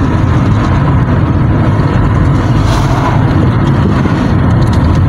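Steady low rumble of a moving car heard from inside its cabin: engine and road noise.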